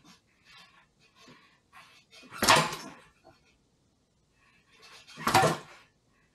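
A homemade metal tube cargo rack clanking and rattling against a pit bike's rear frame as it is test-fitted: two loud clanks about three seconds apart, with lighter taps and rattles between them.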